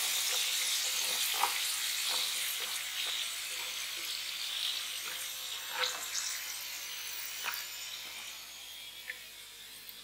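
Potato sticks sizzling in hot oil during their first fry, the sizzle slowly dying away as they are lifted out with a wire strainer. A few light clicks of chopsticks against the strainer and bowl.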